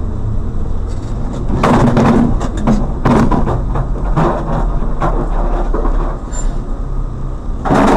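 Vehicle engine and road noise heard from inside a moving vehicle in traffic: a steady deep rumble, with several louder bursts of noise about two, three, four and eight seconds in.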